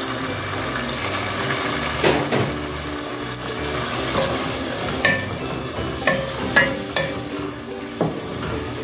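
Keema with freshly added chopped tomato frying and sizzling in an enamel pot while a wooden spoon stirs it. The spoon knocks sharply against the pot several times, mostly in the second half, with a brief ring after some knocks.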